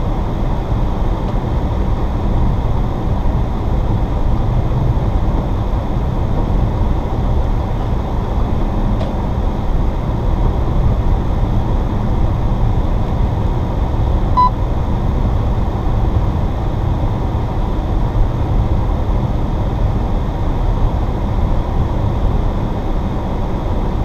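Inside the cabin of an Audi S4 driving on a snow-covered road: a steady low rumble of tyres and engine that does not change.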